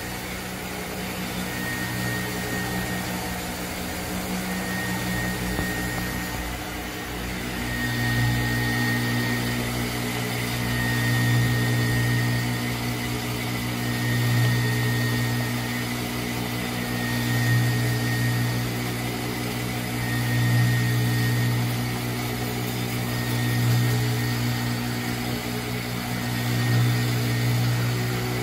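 Flywheel resurfacing grinder running, its motor-driven cup grinding wheel grinding the face of a 1977 MGB flywheel with a steady hum. From about eight seconds in the sound swells and eases about every three seconds.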